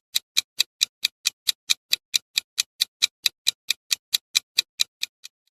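Countdown-timer ticking sound effect: even, clock-like ticks at about four and a half a second, stopping just before the end.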